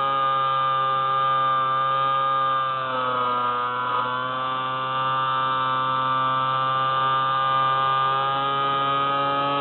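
SpyHawk FPV plane's electric motor and propeller whining steadily in flight. The pitch sags about three seconds in as the motor slows briefly, then climbs back to its earlier note.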